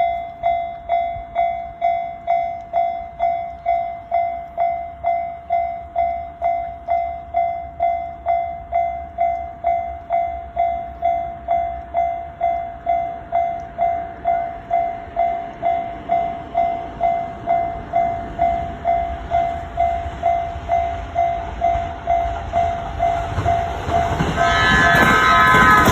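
Japanese level-crossing warning bell ringing in an even electronic "kan-kan" about twice a second. Near the end a JR Kyushu 787 series limited express rushes up and its loud passing noise swamps the bell.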